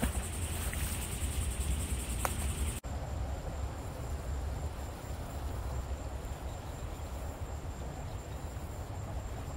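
Insects buzzing in a steady high band over a low rumble. About three seconds in the sound cuts off abruptly, and the buzz is replaced by a thin, faint high whine.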